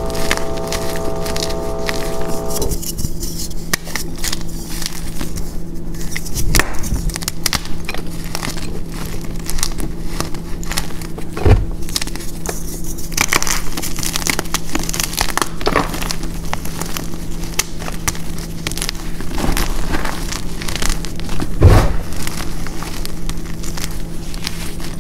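Hands crushing and crumbling a pressed gym chalk reform (gym chalk mixed with baby powder, corn starch and baking soda) into loose powder. Dense crisp crackling and crunching of chalk pieces breaking apart, with two louder crunches around the middle and near the end.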